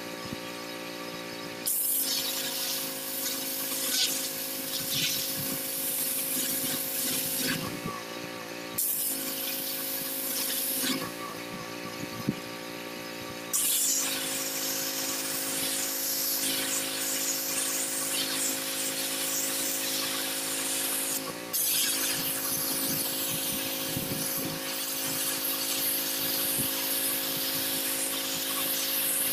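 Pressure washer running with a steady machine hum, its water jet blasting the concrete driveway in long bursts of loud hiss. The spray cuts in about two seconds in, stops briefly twice in the middle and then runs on, with a short break near the end.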